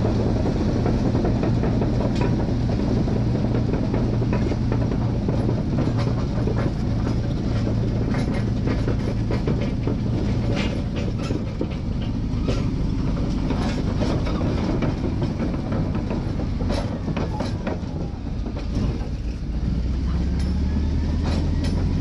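Caterpillar D11 bulldozer running under load, a steady low diesel drone with the steel tracks clanking and clattering. Near the end the engine note rises.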